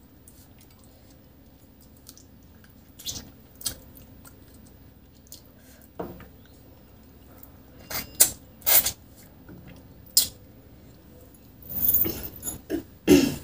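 Close-up eating sounds of fish curry and rice eaten by hand: scattered wet mouth smacks and finger-sucking, coming quicker near the end.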